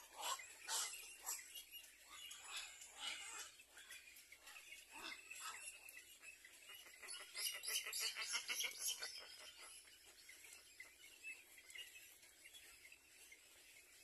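Birds chirping in quick runs of high, rapid notes, with the busiest run about seven to nine seconds in.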